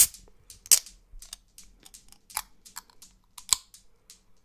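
Fingers flicking and tapping the pull tab and top of an aluminium Red Bull can, close to the microphone: a string of sharp, irregular clicks, the loudest right at the start and again about three-quarters of a second in.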